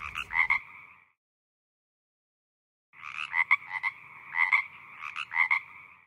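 A frog calling: a short run of croaks, a pause of about two seconds, then three more runs of croaks.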